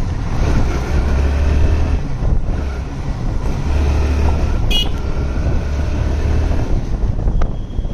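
Motorcycle riding down a rough lane, with wind buffeting the microphone in gusty low rumbles over steady road and engine noise. A brief high-pitched tone sounds about halfway through.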